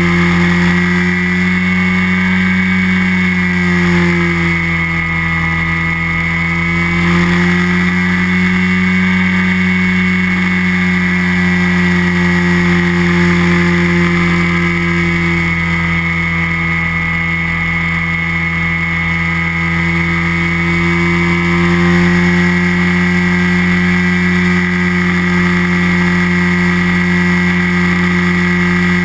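Flex-wing microlight trike's engine and propeller droning steadily in cruising flight. Its pitch sags slightly about five seconds in and settles back.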